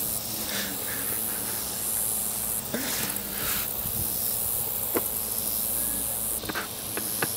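Insects droning in the high register, a hiss that swells louder and eases back a few times, with a few soft clicks.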